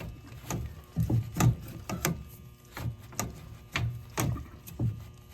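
Copper water pipe being cut by hand: a regular run of short strokes about twice a second.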